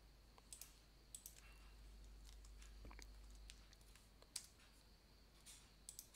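Near silence with a few faint, scattered clicks of a computer mouse and keyboard, over a steady low hum.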